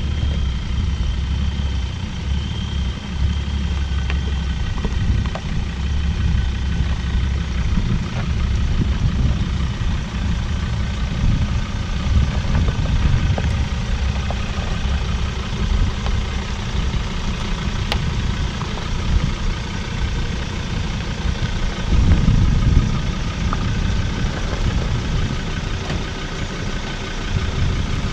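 Four-wheel-drive vehicle's engine running steadily at low revs, with a louder low rumble for a moment about three quarters of the way through.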